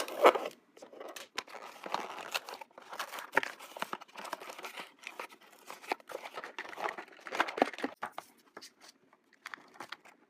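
Toy packaging being opened by hand: irregular crinkling, tearing and clicking of cardboard and plastic. It thins out near the end.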